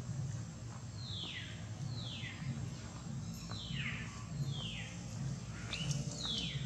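A bird calling over and over: five high calls, each falling in pitch, spaced roughly a second apart, over a low pulsing hum.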